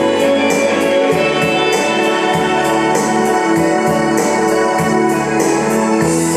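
Backing track of a pop-rock song playing: a steady drum beat with regular cymbal ticks, a bass line and sustained keyboard chords.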